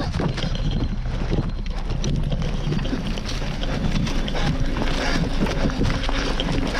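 Hurried footsteps through long grass with handheld-camera rustle and knocks, and wind on the microphone.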